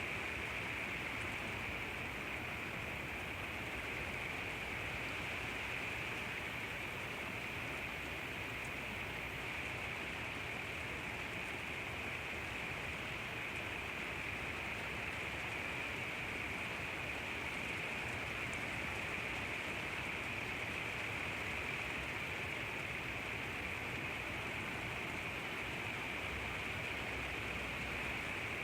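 Steady rain falling, an even hiss with no distinct drops or thunder.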